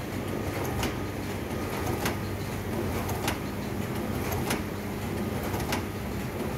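Xerox PrimeLink C9070 production printer running steadily while printing envelopes, with a sharp click about every second and a quarter as each printed envelope is fed out onto the output tray.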